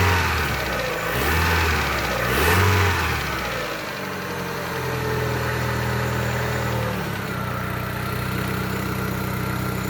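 Rebuilt Daewoo Lanos 1.6-litre four-cylinder engine blipped up and down about three times, then settling into a steady idle. It runs evenly, without misfiring or knocking: the repair has cured the knock.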